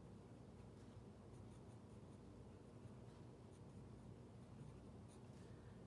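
Faint, intermittent scratching of a pen writing letters on sketchbook paper.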